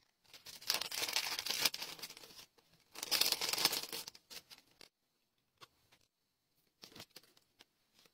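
Clear plastic packaging crinkling as it is handled, in two stretches of about two seconds each, followed by a few light taps near the end.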